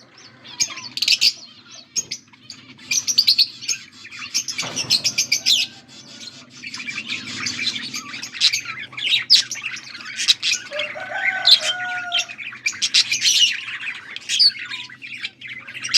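Budgerigars chattering and warbling: quick runs of high chirps in bursts with short pauses, over a faint steady low hum.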